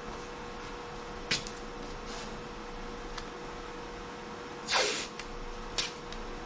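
Tape being pulled off the roll with one short, loud rip about five seconds in, among a few light clicks and taps of handling, over a steady electrical hum.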